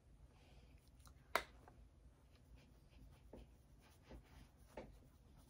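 Faint soft strokes of a small powder contour brush sweeping over the cheek, with one sharp click about a second and a half in and a few fainter ticks later.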